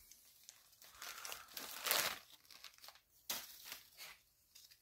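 Wrapping paper crinkling and tearing as a present is unwrapped by hand, in irregular rustles that are loudest about two seconds in.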